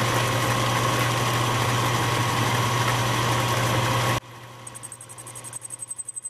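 Atlas 618 metal lathe running, its motor and spindle giving a loud steady hum as it turns a stainless steel housing for a snap ring groove cut. About four seconds in the sound drops away sharply, leaving a much fainter rhythmic ticking.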